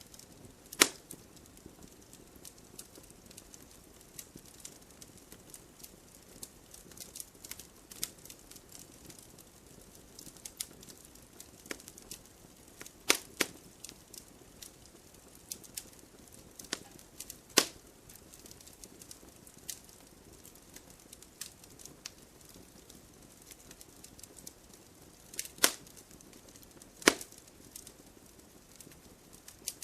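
Wood fire burning in a fireplace: a faint steady hiss with scattered crackles and a few sharp, louder pops from the burning logs.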